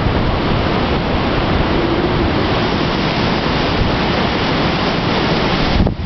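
Strong gusty wind buffeting the microphone, a loud, steady rush of noise that dips briefly near the end.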